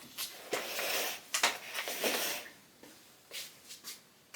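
Handling noises: a scatter of light clicks and knocks with brief rustling, like small objects being picked up and set down on a workbench. The sounds thin out to a few faint clicks in the second half.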